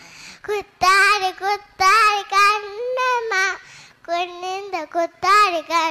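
A young girl singing a Tamil children's song solo, with no accompaniment, in short phrases separated by brief pauses.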